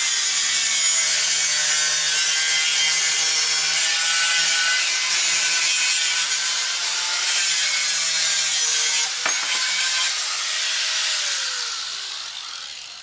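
Handheld electric angle grinder with a cutting disc slicing through a steel chair frame: a loud, steady, high-pitched grinding hiss. About nine seconds in the cut breaks briefly, then the trigger is released and the disc winds down, the pitch and loudness falling, with a short knock at the very end.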